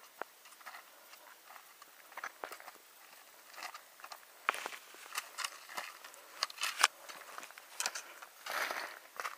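Footsteps crunching in snow and trekking-pole tips clicking, an irregular run of short crunches and taps that grows louder about halfway through.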